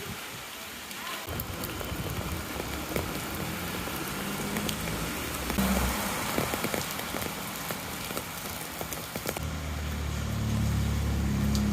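Rain falling, with many small drops ticking on nearby surfaces. Under it a low boat engine hums from about a second in, growing louder near the end.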